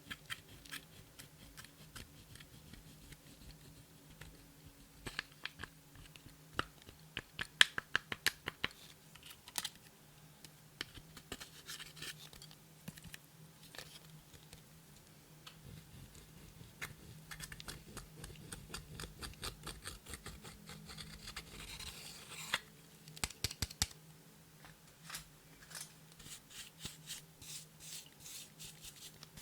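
Slime being worked by hand, giving runs of sharp clicks and crackling pops, loudest in quick clusters about a third of the way in and again near the end.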